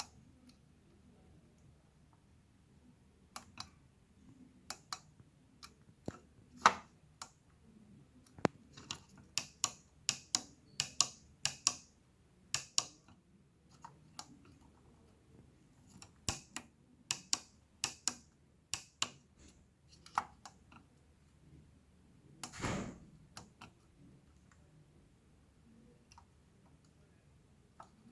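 Irregular small clicks and taps, some single and some in quick runs, with one longer rubbing thud about 23 seconds in.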